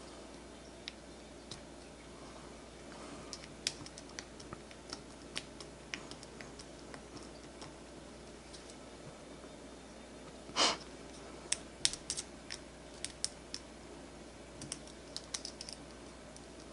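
Faint, scattered clicks and taps of small metal reel parts and a precision screwdriver as the spool bearing is worked out of a baitcasting reel spool, with one louder knock about ten and a half seconds in.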